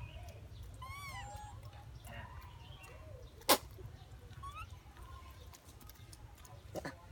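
Pigtailed macaque giving short, high, arched squeaky calls about a second in, with a few fainter calls after. A single loud sharp click about three and a half seconds in is the loudest sound, with a smaller click near the end, over a steady low hum.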